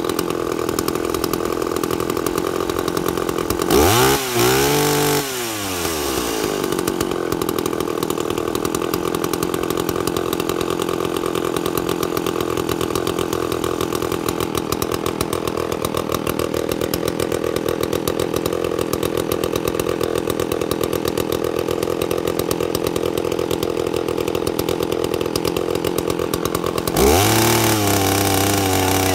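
Two-stroke chainsaw engine running while its carburetor is being adjusted, mostly idling steadily. It revs up and back down briefly about four seconds in, then revs up again near the end and holds the higher speed.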